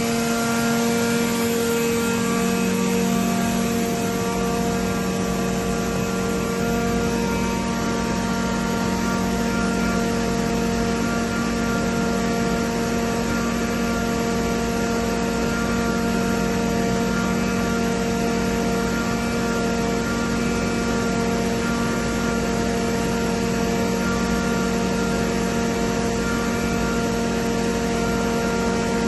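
Almig Variable 55 oil-injected rotary screw air compressor running: a steady hum of several constant tones over a broad mechanical noise, with a few tones shifting in the first three seconds before holding steady.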